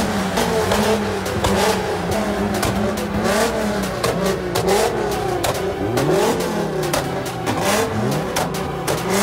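A car engine being free-revved hard over and over. Each rev climbs quickly, holds at the top for a moment, then falls away, with short sharp cracks scattered through.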